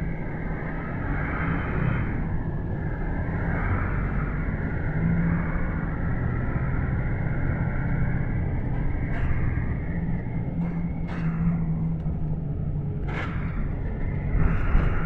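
Cabin noise inside a Luidor-225019 (GAZelle Next) minibus under way: a steady engine hum and road noise. A few short knocks or rattles come in the second half.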